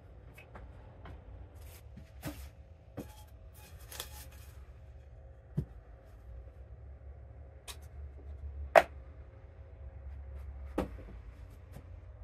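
Round plastic and metal lids being set down and moved around on a sheet of poster board: scattered light clicks and knocks, with one sharper knock about nine seconds in, over a steady low hum.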